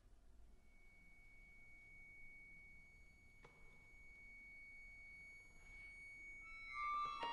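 Accordion holding a single very soft, thin high note, steady for several seconds, with one faint click about three and a half seconds in. Near the end several more high notes come in together and swell.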